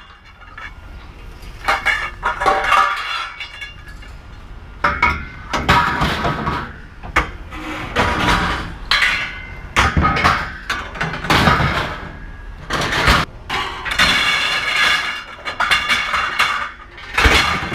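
Scrap metal pieces clanging and banging together as they are handled and thrown into a truck bed: a run of irregular hard knocks, many followed by a brief metallic ring.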